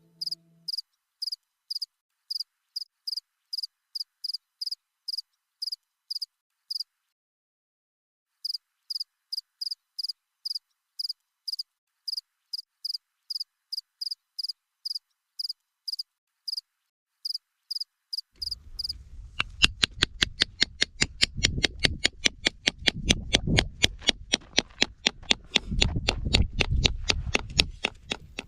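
A calling animal's rhythmic high-pitched chirps, about three a second, with a short pause about a quarter of the way in. In the last third the chirps come faster and louder over a low rumbling noise.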